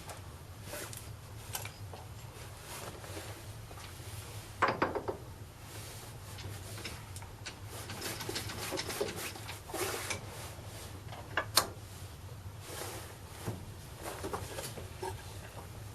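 Metal tools and parts being handled in a lathe workshop: scattered clinks, knocks and scraping, with two sharper knocks about five and eleven seconds in, over a steady low hum.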